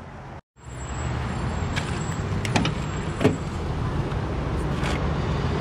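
Steady low vehicle rumble that briefly cuts out near the start. A few sharp clicks fall about halfway through as the 1994 Cadillac Fleetwood Brougham's rear door is unlatched and opened.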